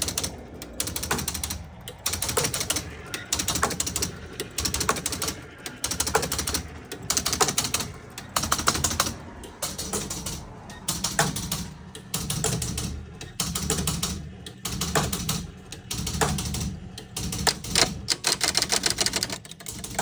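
Bally Vampire electromechanical pinball machine's relays and stepper mechanisms chattering in bursts of rapid clicks about once a second, with a hum under each burst, as the machine cycles without starting a game because the score reset isn't engaging.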